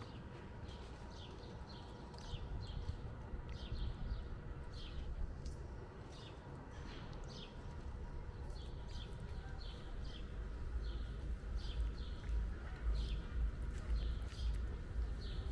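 Cat chewing and smacking on wet cat food: an irregular run of short, sharp clicks, about two or three a second, over a low steady rumble.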